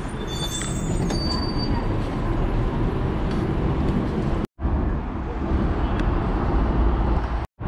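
Tram at a station platform: a steady low rumble of the tram and platform noise, with a few thin high tones in the first second or so. The sound breaks off abruptly for an instant twice.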